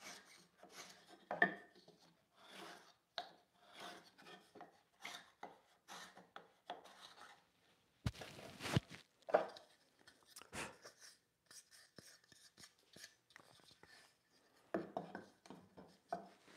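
A steel marking tool scraping along the end of a walnut board in short repeated strokes, about two a second, deepening a layout line that was cut too shallow. About halfway through there is one sharp wooden knock, then more light scrapes and handling.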